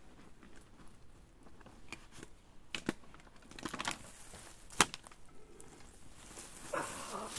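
Camping gear being handled and a backpack rummaged through: rustling and crinkling, with scattered clicks and one sharp, loud click a little past the middle.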